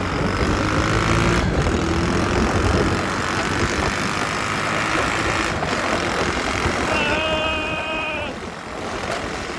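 Small pocket-bike engine running, with a low rumble early on and a steady high-revving whine for about a second near the end.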